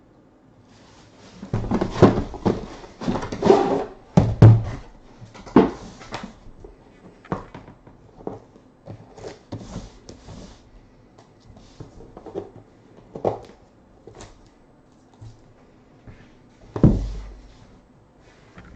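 Unboxing and handling noise: a cardboard box being handled and scraped open with rustling and knocks, then an aluminium card briefcase handled with light taps and clicks, and set down with one heavy thump near the end.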